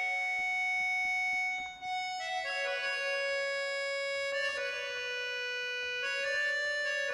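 Accordion playing slow held chords in a song's instrumental intro, the chord changing every couple of seconds, with a brief break just before two seconds in.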